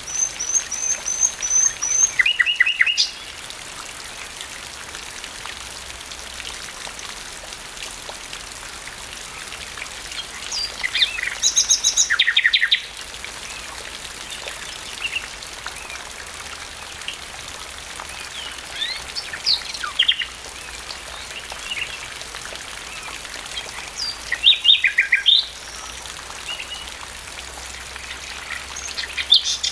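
Common nightingale singing over steady rain hiss. It sings short phrases of rapid repeated notes and trills, about five of them, each followed by a pause of several seconds.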